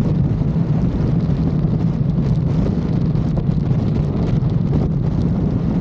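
Strong wind buffeting the microphone, a loud steady rumble with a low drone underneath.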